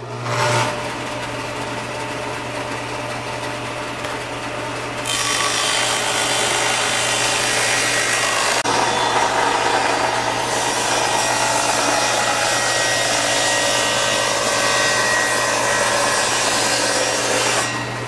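Craftsman table saw running. For about five seconds the motor and blade spin freely with a steady hum. Then the blade rips lengthwise through an old weathered cedar board, louder and rougher, and drops back to free-spinning shortly before the end.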